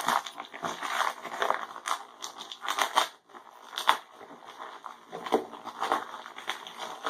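Bubble wrap being pulled open and unwrapped by hand: irregular crinkling and tearing with several sharp crackles.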